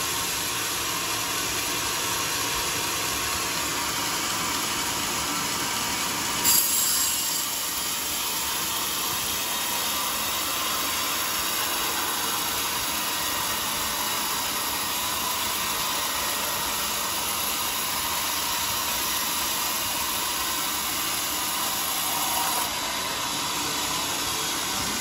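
Band sawmill running, its blade cutting steadily along a large teak beam, with a sharp knock about six and a half seconds in.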